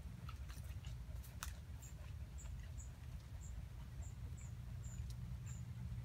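Short, high-pitched chirps from a small animal, repeating roughly twice a second, over a steady low rumble.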